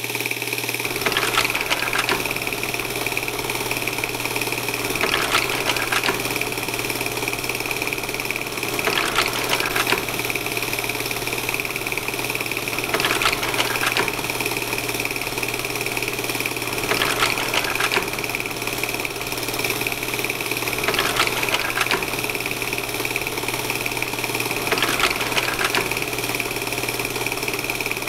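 A machine running steadily with a whir and a low hum, and a pair of short knocks that repeats about every four seconds.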